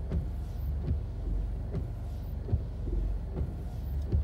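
Windshield wipers with silicone blade refills sweeping back and forth over dry glass, with a soft knock about every 0.8 s as the arms reverse, over a steady low hum of the car. The blades run dry without chattering.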